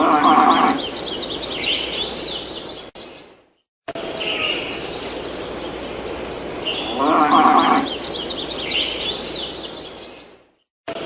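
A looped farmyard sound effect: a short farm-animal call followed by a run of high bird chirps over a steady background hiss. It plays twice, cutting to silence for a moment between the two passes.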